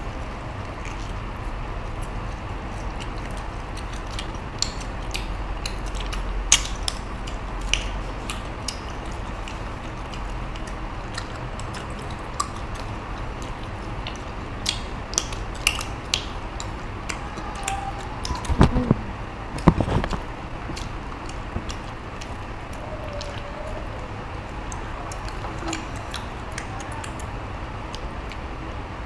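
Eating sounds at a meal: scattered small clicks and taps of tableware and hands on food over a steady background hum, with two louder knocks about two-thirds of the way through.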